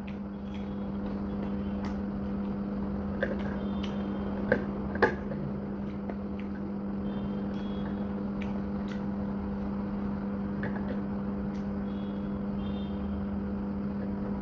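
A steady, even mechanical hum from a motor or appliance in the room, with a few sharp clicks and crunches of crispy fried chicken skin being eaten by hand. The two loudest clicks come about four and a half and five seconds in.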